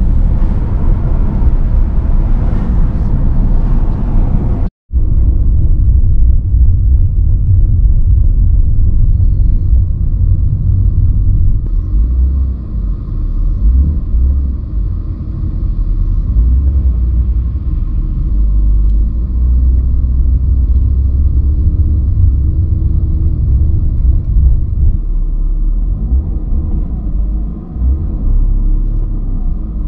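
In-cabin engine and road noise of a Mercedes-Benz W124 E320's straight-six being driven at low speed, a steady low rumble. The sound briefly cuts out about five seconds in.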